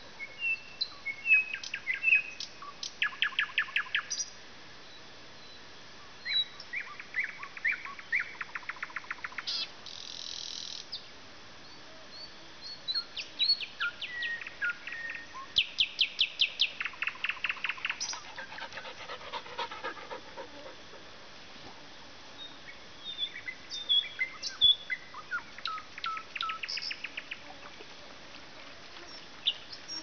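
A nightingale singing: phrases of fast, rattling repeated notes and sharp whistles, separated by short pauses.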